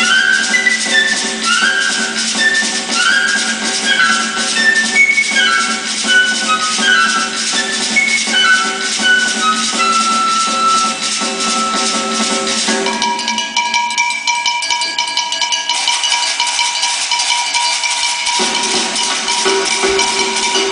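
Live instrumental music for a Brazilian dance: a fast, even percussion pattern under a short melodic phrase repeated over and over above a steady drone. About two-thirds of the way in the phrase gives way to a long held note, and a lower note comes back near the end.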